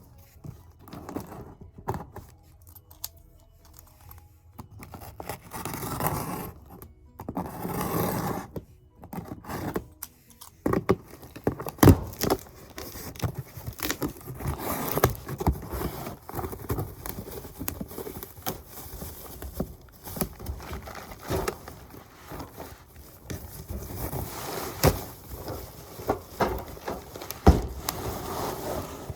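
Items and packaging being handled and unpacked by hand: scraping, crinkling and tearing, with irregular taps and sharp knocks, busier from about ten seconds in.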